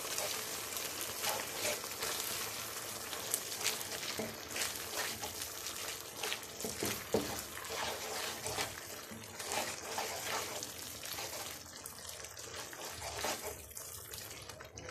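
Thick milk-and-cornflour sauce sizzling and bubbling in a non-stick frying pan while a wooden spatula stirs and scrapes through it, with many small crackles throughout.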